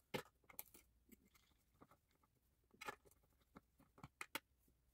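Near silence, with faint scattered clicks and taps from a screwdriver taking screws out of the power supply's metal case.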